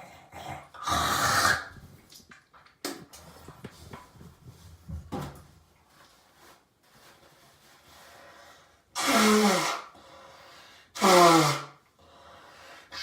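A man clearing his throat and coughing. About a second in there is a long harsh rasp, followed by a few small clicks. Near the end come two loud coughs, each with a voiced note that drops in pitch.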